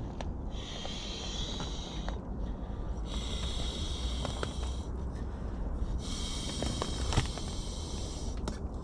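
Air rushing through the inflation valve as a pump bag is pressed into a packraft seat: three pushes of hiss, each about one and a half to two seconds long. A low wind rumble runs underneath.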